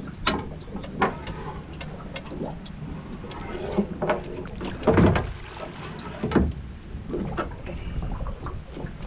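Sharp knocks and clunks against an aluminium dinghy's hull, over water noise around the boat, while a hooked fish is netted over the side; the loudest clatter comes about halfway through.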